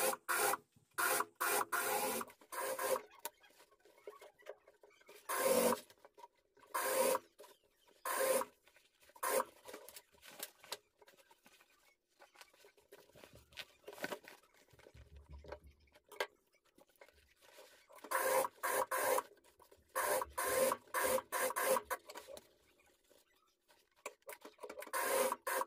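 Industrial sewing machine stitching a jacket zipper in short stop-start runs. Cloth rubs and rustles in the pauses as the work is shifted under the presser foot.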